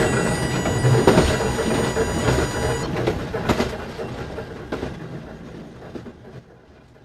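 Train running past a level crossing and moving away, its wheels clattering over the rails. High steady tones ring over it until about three seconds in and then stop, and the whole sound fades steadily.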